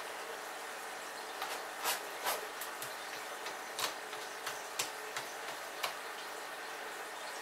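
Cat scratching and digging in the litter inside an enclosed top-entry litter box: a string of short, irregular scratchy scrapes, about nine of them, in the middle of the stretch.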